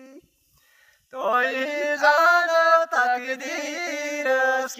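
A man singing unaccompanied. After a breath pause of about a second he sings a wavering, ornamented melodic run, then settles onto a long held note near the end.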